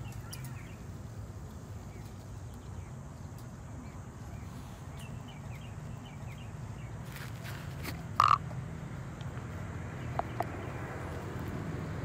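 Wire mesh cage trap being handled and set, giving a few light clicks and one sharper, louder clink about eight seconds in, over a steady low rumble.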